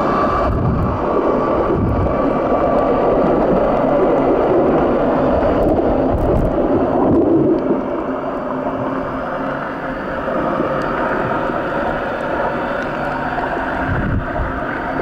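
Steady rushing water noise picked up by a camera held underwater, with a few low thumps.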